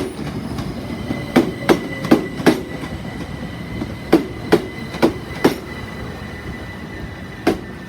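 Train wheels knocking over rail joints in spaced groups of two to four knocks, as bogie after bogie rolls slowly through the station. A thin steady high tone from the train runs from about a second and a half in until near the end.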